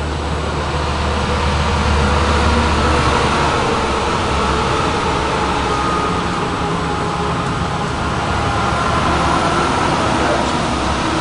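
1967 Chevrolet Chevelle engine running steadily, freshly restarted after sitting for three months, with a strong low rumble.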